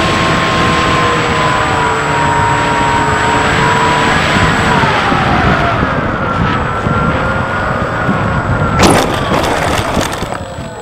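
Bixler 3 RC plane's electric motor and propeller whining over wind rush on the onboard camera, the pitch shifting as the throttle is worked on the landing approach. About nine seconds in the plane touches down on grass with a few sharp knocks and scraping, then the noise dies away.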